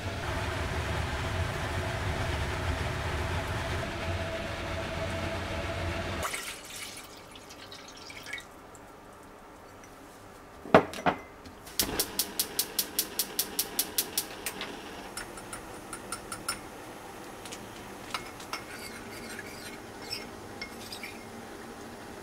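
A pot of udon at a rolling boil on a gas burner makes a steady bubbling noise for about six seconds, then stops. After two knocks, a gas hob's spark igniter clicks rapidly, about five clicks a second for roughly two and a half seconds. Faint clinks of a ladle against a bowl follow.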